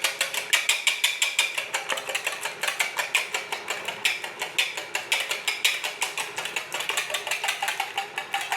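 Rapid, even clicking, about five to six clicks a second, from kitchen hand work.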